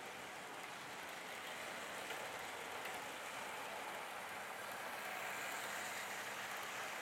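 An OO gauge model train, a Bachmann-built GM 181 class diesel locomotive with coaches, running on sectional track: a steady rushing hiss of wheels and motor, a little louder about five seconds in as the locomotive passes close.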